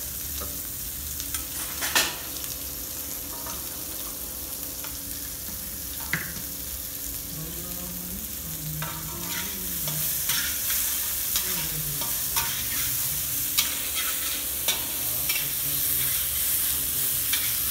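Boiled potato cubes sizzling in hot ghee in a brass wok, stirred with a metal spatula that scrapes and clinks against the pan now and then. The sizzle grows louder about halfway through.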